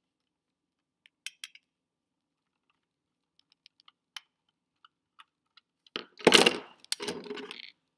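Light scattered clicks of a screwdriver working the screws in the chassis of a 1:18 die-cast model car. About six seconds in comes a loud clatter of metal and plastic parts as the car is taken apart.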